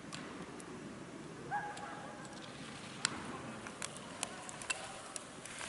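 Faint hiss of skis carving on snow, with a scatter of sharp clicks and one short high tone about a second and a half in.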